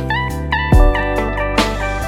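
Background music led by a plucked, sliding guitar line over a steady bass, with a deep beat about a second in.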